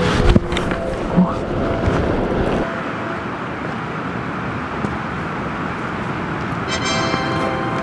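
Background music that cuts off about two and a half seconds in, giving way to a steady rushing of wind and surf on a sea cliff. A brief high buzzing tone sounds near the end.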